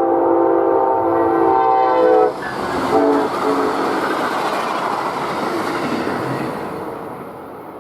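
Diesel locomotive's multi-chime air horn sounding a loud blast that cuts off about two seconds in, then a short blast about a second later, as a train passes a grade crossing. Rolling wheel-on-rail noise follows and fades toward the end.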